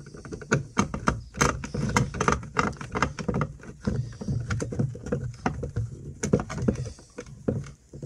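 Screwdriver tightening a wire terminal screw in a plastic switch-panel enclosure: irregular clicks, taps and scrapes of metal on plastic.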